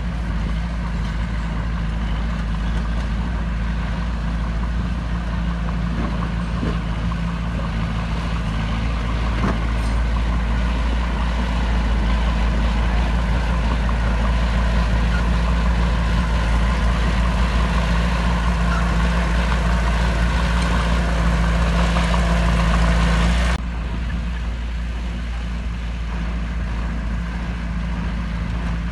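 Heavy diesel engine of earthmoving equipment running steadily, working harder and louder through the middle, then cutting abruptly to a quieter engine sound about 23 seconds in.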